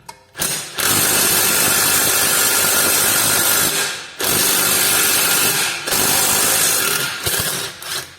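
Power wrench on a socket and short extension, run in three long bursts of several seconds each with brief pauses between, working on a suspension control arm bolt.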